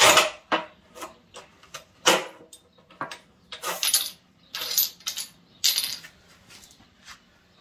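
Manual rail tile cutter and small cut pieces of ceramic tile: two sharp clacks, one at the start and one about two seconds in, then several bright, ringing clinks as the tile pieces are set down on the concrete floor.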